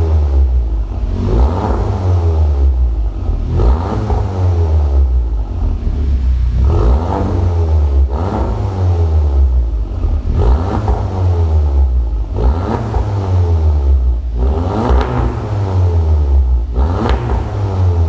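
Audi S3's turbocharged 2.0-litre four-cylinder revved repeatedly while standing still, through an ARMYTRIX valved aftermarket exhaust. Short blips of revs rise and fall back, one every one to two seconds, over a steady low exhaust drone.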